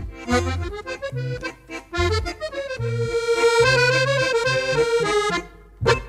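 Instrumental background music: a tune in changing notes over a low bass line, dipping briefly near the end.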